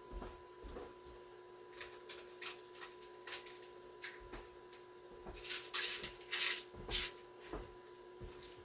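Rummaging through loose screws and small parts: scattered clicks and light rattles, busier and louder a little past halfway. A faint steady electrical tone sits underneath.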